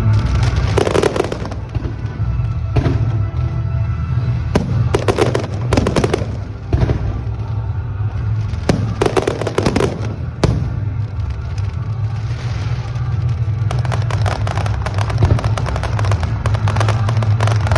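Fireworks going off in waves of dense crackling bursts, over a steady low hum of background music.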